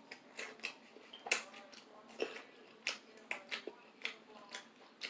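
Close-up eating sounds: chewing with a dozen or so irregular wet clicks and smacks of the mouth and lips.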